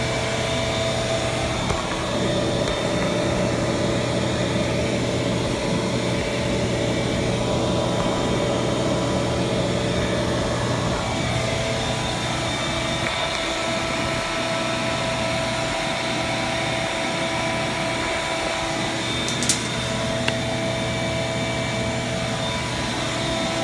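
Deep freezer's refrigeration condensing unit running: a steady hum of the compressor and condenser fan motor, with one short click a few seconds before the end.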